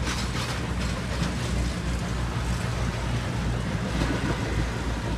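Passenger cars of a train rolling past at close range: a steady low rumble of steel wheels on rail, with a few faint clacks in the first second.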